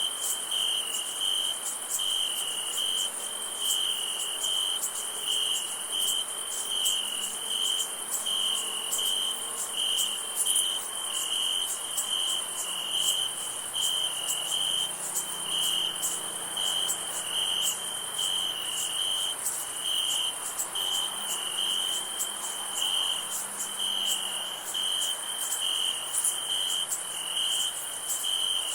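Crickets chirping in a steady, even rhythm, with a thin, continuous high-pitched insect trill above them.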